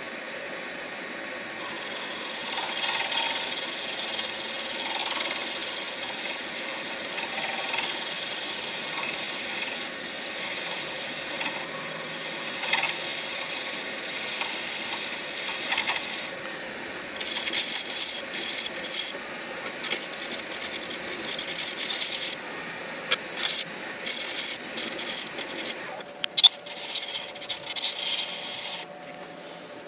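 Midi lathe running while a tool shapes the spinning acrylic pen blank, with a steady hum under a hissing cut. The cut runs steadily for most of the first half, then comes in short start-stop passes that grow loudest near the end.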